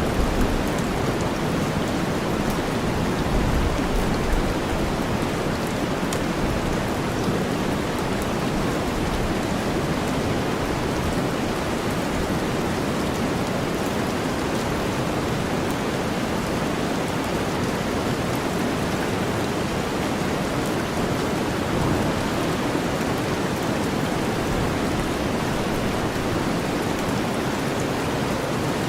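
Steady rain mixed with deep white noise: an even, low rushing hiss with faint patter of drops over it.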